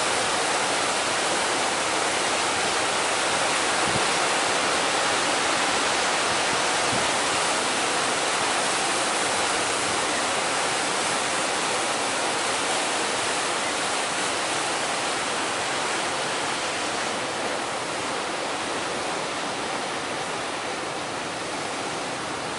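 Steady rushing noise of heavy surf and strong wind, easing a little near the end.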